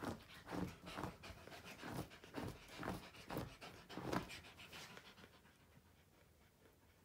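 A dog panting, about two breaths a second, fading out about five seconds in.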